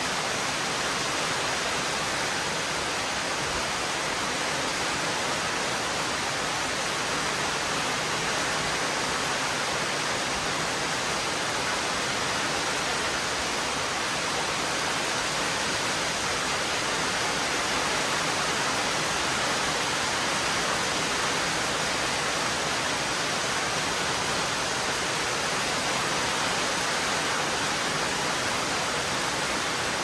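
Heavy rain pouring steadily, an even, unbroken hiss.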